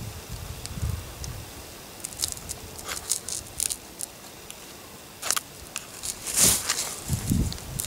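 A ferro rod is struck several times over a dry grass tinder bundle to light a fire: short, sharp rasps, a cluster of quick ones and then a few single strokes, the last and loudest near the end.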